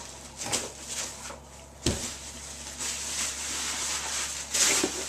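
Rustling of packing material as wrapped items are handled in a shipping box, with one sharp knock about two seconds in and a louder rustle near the end.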